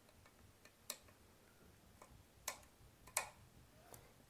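Faint, scattered clicks, about three of them, from small metal and plastic parts being handled as wires are fitted and tightened into a ceiling fan's terminal connector.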